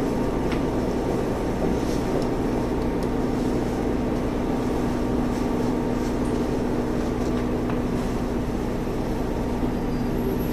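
JR Central KiHa 25 diesel railcar's underfloor engine running with a steady hum, heard from inside the passenger cabin as the railcar creeps along the platform on arrival.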